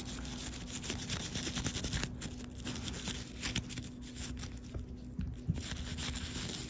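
Old toothbrush scrubbing a small radio knob coated in Gojo cleaner, in quick, irregular scratchy strokes.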